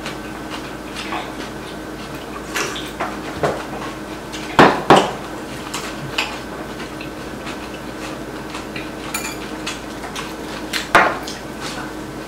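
Metal chopsticks and spoons clinking and tapping against ceramic bowls and plates during a meal. Scattered light clicks, with a sharper pair of clinks about four and a half seconds in and another near the end, over a faint steady hum.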